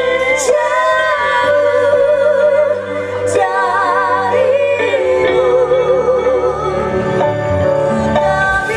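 Woman singing sustained notes with heavy vibrato into a microphone, over a live band with keyboard, electric guitar and hand drums, amplified through stage speakers.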